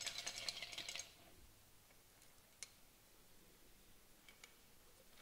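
Near silence in a small room, with a faint crackly rustle in the first second and two faint clicks later on.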